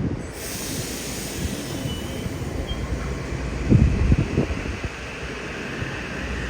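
Wind buffeting the microphone in gusts, with a train's rail noise as a hiss that grows toward the end.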